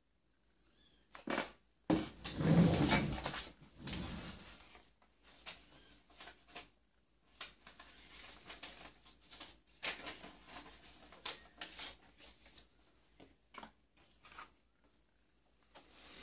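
Handling noises: paper rustling and small objects being moved and tapped on a wooden workbench, in scattered clicks and short rustles, the loudest rustle lasting a couple of seconds near the start.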